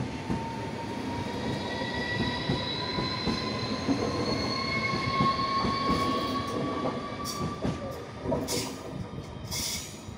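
Italo high-speed electric train pulling out past the platform: a rumble with a whine that rises slowly in pitch as it gathers speed, fading near the end with a few sharp clicks.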